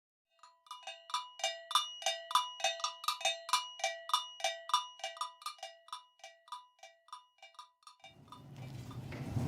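A metal cowbell struck in an even rhythm, about three ringing strikes a second, gradually fading away. Background ambience rises near the end.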